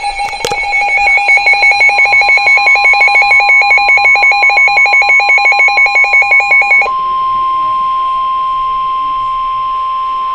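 Emergency alert tones: a rapid electronic beeping alarm, about five beeps a second, then about 7 seconds in it switches to a single steady tone of about 1 kHz. That steady tone is typical of the 1050 Hz warning alert tone that comes before a weather-radio Severe Thunderstorm Warning broadcast.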